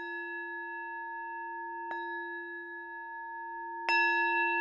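A metal singing bowl struck three times with a wooden striker. A long, steady ring of several layered tones sustains between strikes; the second strike is lighter, and the third, near the end, is the loudest.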